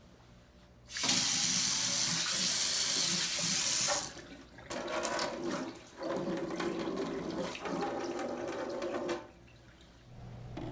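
Water from a newly installed Kohler Carafe kitchen faucet running into a stainless steel sink in its first test. It comes on loud and hard about a second in, as from a high-pressure faucet turned on full, drops to a softer flow after about three seconds, then stops near the end.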